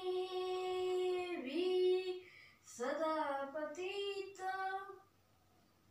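A voice holding long, drawn-out notes. A steady note rises at the start and dips briefly about a second and a half in, then several shorter notes rise and fall, stopping about five seconds in.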